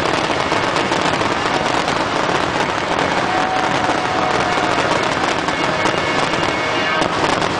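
Fireworks finale barrage: many aerial shells bursting in quick, overlapping succession with no break.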